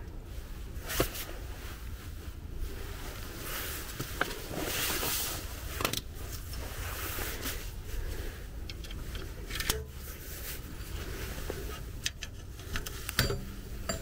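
Hand tools clicking, knocking and scraping against the rear handbrake shoes and hub of a car brake. Scattered sharp clicks, the loudest about a second in, a longer scrape about five seconds in, and a cluster of knocks near the end, over a low steady hum.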